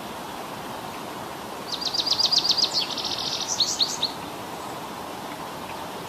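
Male indigo bunting singing one high, quick song phrase: a run of about ten rapid notes, a short buzzy stretch, then a few slurred notes, starting about two seconds in. A steady background hiss runs underneath.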